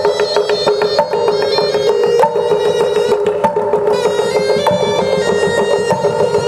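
Instrumental music: a melody of held notes over light percussion strikes.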